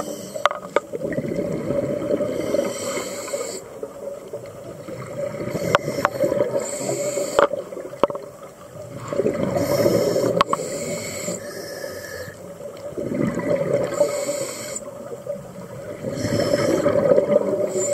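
Scuba regulator breathing heard underwater: a hissing inhale through the regulator alternating with a rumbling rush of exhaled bubbles, repeating every three to four seconds. A few sharp clicks sound in between.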